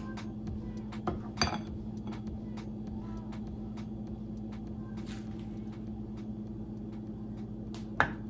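A white plastic serving spoon knocking against a glass mixing bowl and a metal muffin pan as egg mixture is spooned into the cups. There are two sharp clinks a little over a second in and a louder one near the end, over a steady low hum.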